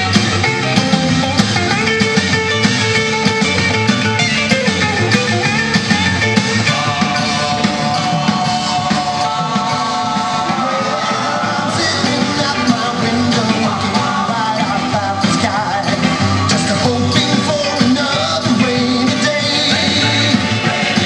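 A rock and roll record with singing, guitar and drums, playing on a restored Rock-Ola Tempo II jukebox.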